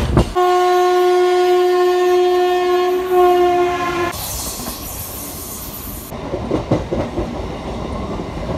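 Train horn sounding one long steady blast of about three and a half seconds that cuts off abruptly. After it, the rumble and clatter of a moving train.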